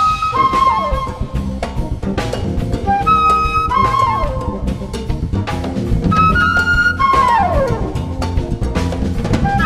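Live Latin jazz band: two flutes play a repeated melodic phrase, several times ending in a long downward slide, over drum kit, congas, electric bass, electric guitar and keyboard.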